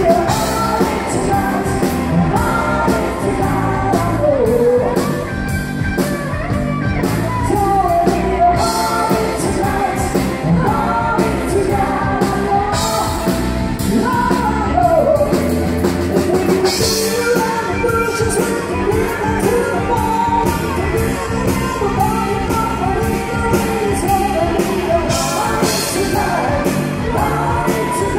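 Live country-rock band playing: a male lead singer on a microphone over a steady drumbeat and electric guitar.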